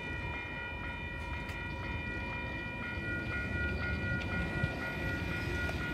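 Railroad grade-crossing warning bell ringing steadily, about two strokes a second, over a low rumble from the train moving off.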